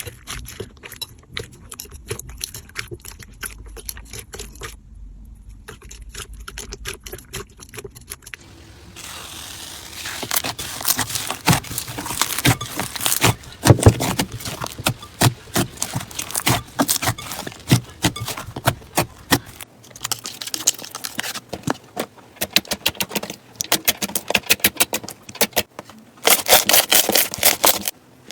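Slime being squeezed and pressed by hand, making dense crackling and popping clicks. It gets much louder about a third of the way in, and the texture changes a couple of times.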